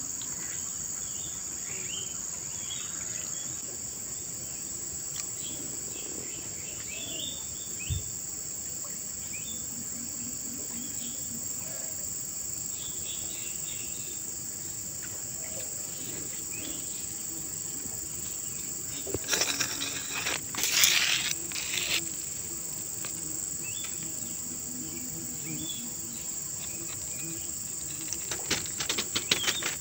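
A steady high-pitched drone of insects, crickets by their sound, with scattered short bird-like chirps. Two spells of louder crackling noise come about two-thirds of the way through and again near the end.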